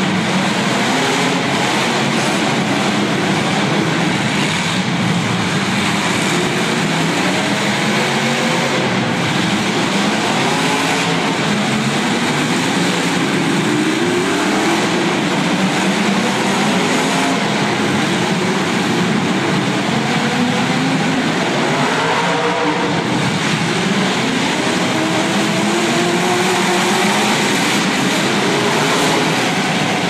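Several demolition derby car engines revving up and down at once, their rising and falling pitches overlapping in a loud, steady din.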